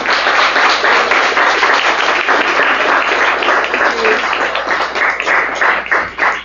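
Audience applauding, the clapping thinning into a few separate claps near the end.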